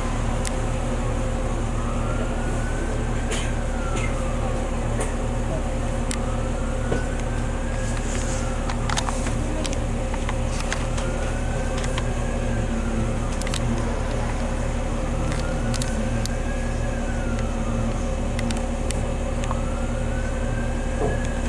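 Inside a 2001 New Flyer D40LF city bus, its diesel engine idling steadily while the bus stands still. A faint whistle rises and falls about every four seconds, with scattered light clicks over the engine.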